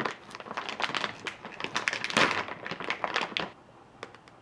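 Plastic candy bag crinkling and crackling as it is pulled open by hand, loudest about two seconds in, then a couple of light ticks near the end.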